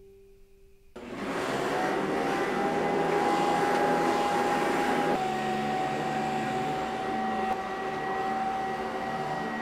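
Upright vacuum cleaner switched on about a second in, its motor spinning up with a short rising whine and then running steadily. Its pitch drops slightly about five seconds in.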